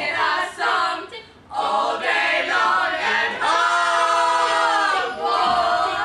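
Several young voices singing together a cappella, loosely in unison, holding one long chord for about a second and a half partway through.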